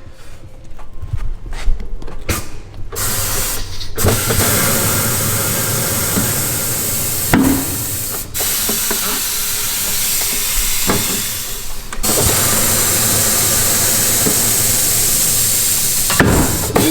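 Compressed air hissing loudly and steadily at a pneumatic tire changer, starting about three seconds in and breaking off briefly a few times. A few knocks come before it.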